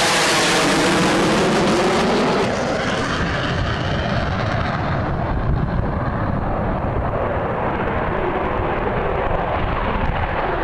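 Jet engine roar from F-22 Raptor fighters: first a loud, full-range flyby with a falling, sweeping tone. About two and a half seconds in it cuts to a duller, lower engine rumble of an F-22 on its takeoff run.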